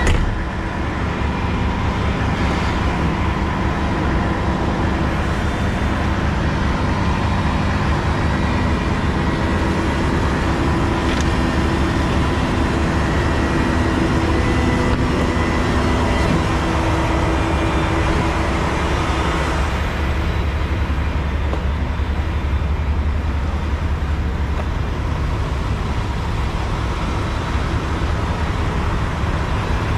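Heavy diesel engine of a Cat 730 articulated dump truck idling steadily.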